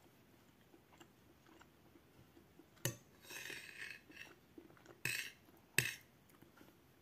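Metal cutlery scraping and clinking against a plate while food is scooped up: two sharp clinks and two short scrapes in the middle of the stretch.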